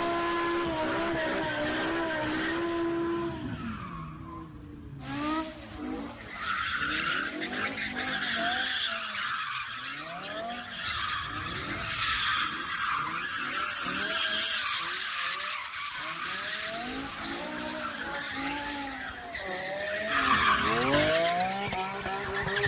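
Cars doing burnouts and donuts: engine held at high revs for the first few seconds. After a sudden cut about five seconds in, engines rev up and down repeatedly over screeching, squealing tyres, louder near the end.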